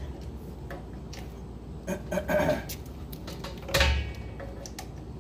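Small clicks and clinks of hands working wires and fittings at a well pump pressure switch, with a clatter about two seconds in and a louder thump near four seconds.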